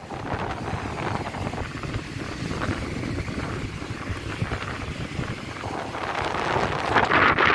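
Wind buffeting a phone's microphone outdoors: a steady rumbling noise with no clear events. It grows louder in a gust near the end.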